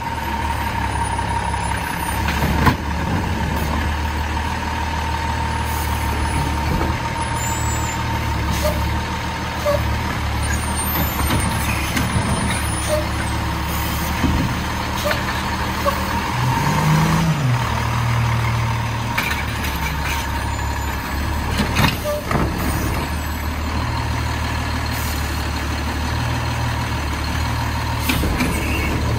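Diesel engine of an Autocar WXLL garbage truck with a McNeilus Autoreach side loader running steadily, revving up briefly a little past halfway. A couple of sharp knocks come through, one near the start and one late on.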